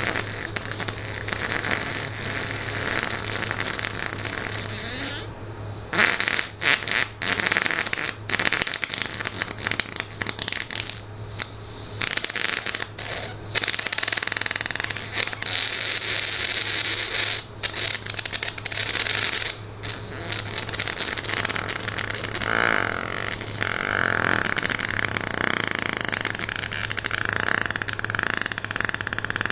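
A run of fart sound effects played one after another, each a noisy sputter, with short breaks between them.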